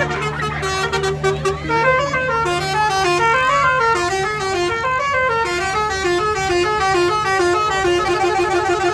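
Telolet basuri bus horn playing a fast melody of short stepped notes, the pitch jumping up and down several times a second.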